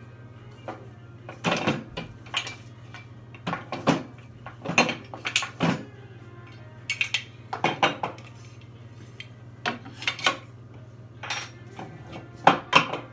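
Metal parts of a black square-tube stand clanking and knocking together as it is handled and assembled: irregular clanks and clinks, some in quick pairs, coming every second or so.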